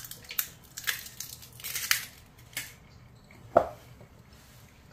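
Egg being opened over a stainless steel mixing bowl: shell halves pulled apart with a wet squish as the egg drops in, followed by a few light clicks and taps. The loudest is a single knock about three and a half seconds in.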